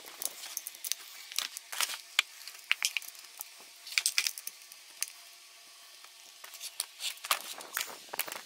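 Hand tools clinking and scraping against a stripped motorcycle engine crankcase as its case bolts are worked loose. Irregular sharp metal clicks and light clatter, quieter for a couple of seconds past the middle, then a busier run of clicks near the end.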